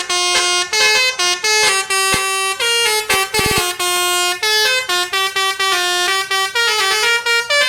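Basuri telolet musical air horn on a bus playing a quick melody of short, changing notes without a break.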